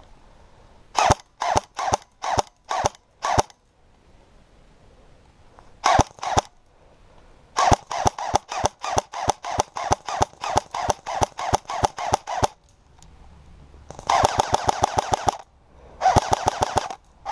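Airsoft guns firing: spaced single shots, then a steady string of shots about three to four a second, then two rapid full-auto bursts of about a second and a half each near the end.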